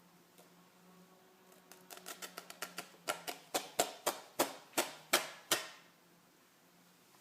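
A series of about twenty sharp clicks, quick and light at first, then louder and more evenly spaced at roughly three a second before they stop.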